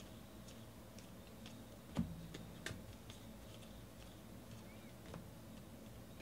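Faint clicks and light taps of cardboard football trading cards being flipped and shuffled from hand to hand, with a louder tap about two seconds in.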